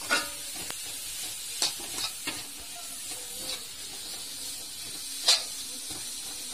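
Sliced onion, chillies and ginger sizzling in a wok as they are stirred slowly with a metal spatula, with a few scrapes and clinks of the spatula against the pan, the loudest about five seconds in.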